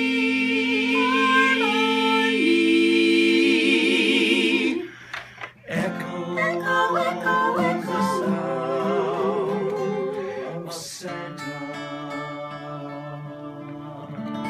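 Singers holding a chord in harmony with vibrato, which cuts off about five seconds in. After a short gap comes another sung phrase with vibrato, then from about eleven seconds a held chord that slowly fades.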